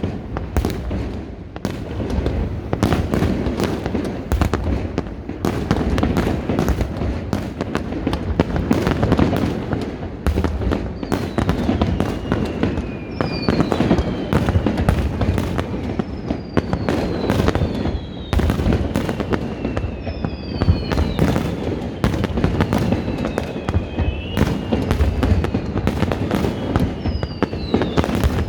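Fireworks display: a dense, unbroken run of shell bursts and bangs, with falling whistles repeating from about a third of the way in.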